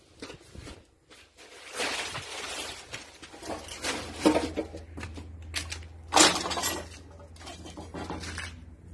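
Freshly rebuilt Lister SR3 three-cylinder air-cooled diesel engine running on its first start, a steady low hum under irregular loud metallic clanks and rattles, the loudest about four seconds in and again around six seconds.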